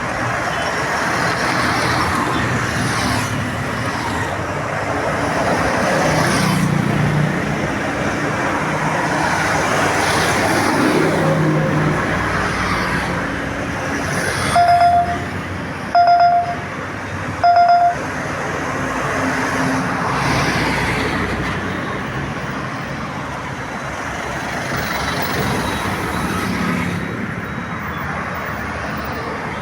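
Busy road traffic, with buses and other vehicles going past one after another. About halfway through, a vehicle horn gives three short honks.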